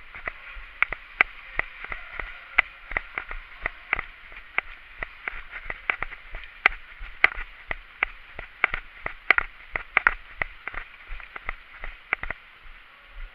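Airsoft guns firing single shots in quick, irregular succession, several sharp cracks a second, stopping about a second before the end.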